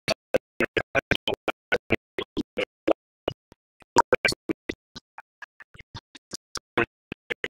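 Broken-up livestream audio: short choppy fragments of sound, about five a second, cut off by dead silent dropouts. This is the stutter of a stream starved by a slowing internet connection.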